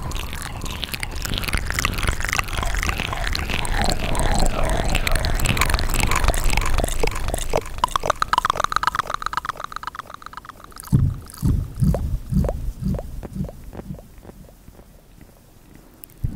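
Close-miked ASMR mouth sounds made with a finger at the lips: a dense run of wet lip smacks and tongue clicks, a quick train of clicks rising in pitch about eight seconds in, then sparser soft pops, quieter near the end.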